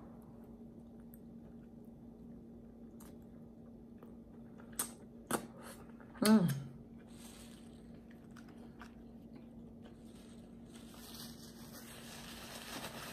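Close-up chewing of a mouthful of bacon cheeseburger, with a few wet mouth clicks and a short falling hummed "mm" about six seconds in. Paper wrapper rustling near the end.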